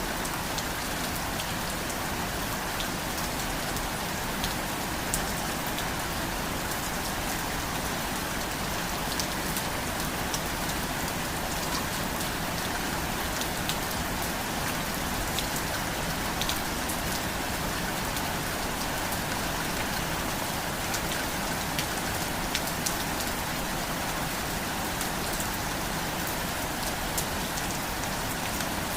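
Steady rain falling, an even hiss with scattered sharp drips of individual drops landing on a surface.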